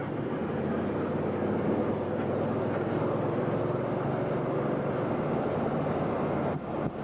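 Steady engine and road noise of a moving vehicle, with a low hum under it; the level dips briefly near the end.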